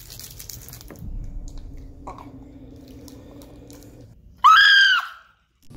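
A boy's short, loud, high-pitched squeal about four and a half seconds in, rising then held for about half a second, cutting off suddenly. Before it, a crinkle of the candy wrapper at the start, then quiet room sound with a low steady hum.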